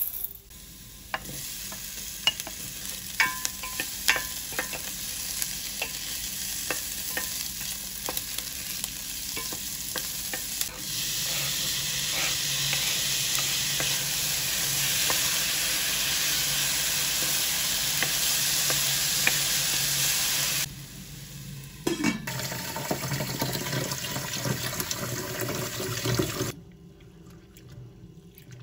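Food sizzling in a frying pan while a utensil stirs it, scraping and clicking against the pan. The sizzle gets louder about a third of the way in, breaks off briefly twice and drops to a faint background near the end.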